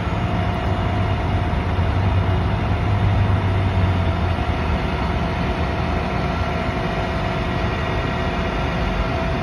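Flatbed tow truck's engine running at idle with a steady low hum and a faint steady whine above it; the low hum is louder for the first four seconds or so, then eases.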